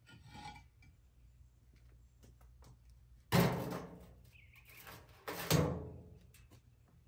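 Two heavy thuds about two seconds apart as concrete cinder blocks are set down into a wheelbarrow, with a few light knocks between them.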